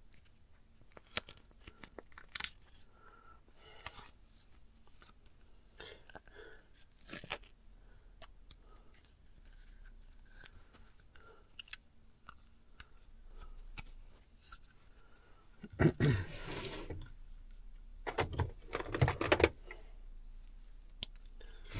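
Duct tape being pulled off the roll and torn, with two longer, louder rips about 16 and 18.5 seconds in and scattered clicks and rustles of handling before them.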